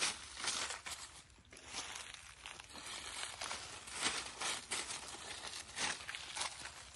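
Dry fallen leaves rustling and crackling in irregular bursts as hands rake and sift through leaf litter.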